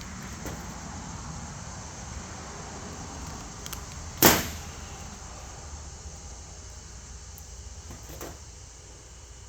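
Wire strippers stripping insulation off headlight wires: one sharp snap about four seconds in and a fainter one near the end, over low steady background noise.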